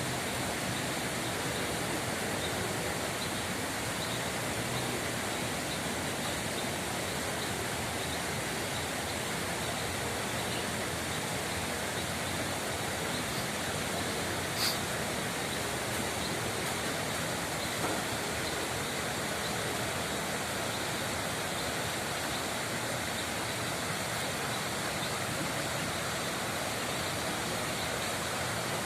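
Steady rushing of flowing, rippling water, with one brief click about halfway through.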